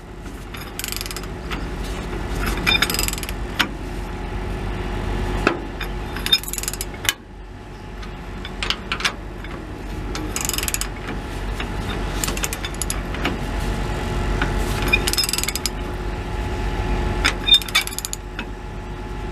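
Socket wrench ratcheting in short bursts of quick clicks, with pauses between, as an exhaust clamp bolt is cranked down tight, over a steady low hum.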